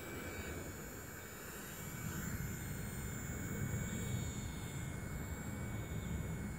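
Blade 130S radio-controlled helicopter's small electric motor and rotors whining steadily in flight, getting louder about two seconds in as the helicopter comes down close by near the grass.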